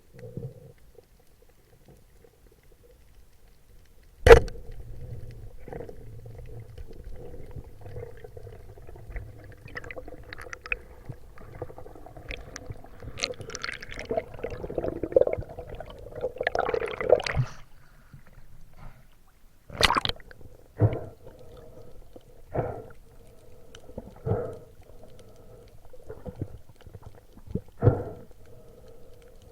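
Muffled underwater sound picked up through a camera's waterproof housing: gurgling water and a faint steady hum. A single sharp, loud knock comes about four seconds in, and several smaller knocks follow in the second half.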